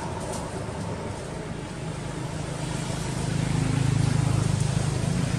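A motor vehicle's engine hum, low and steady, growing louder about halfway through, with a few faint clicks near the start.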